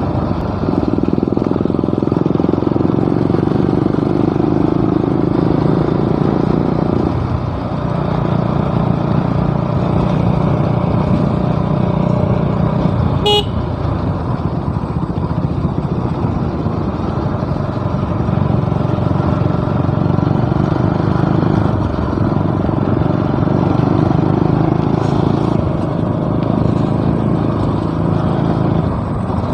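Motorcycle engine running under way, its note dropping about seven seconds in and shifting up and down after. A short horn beep sounds about halfway through.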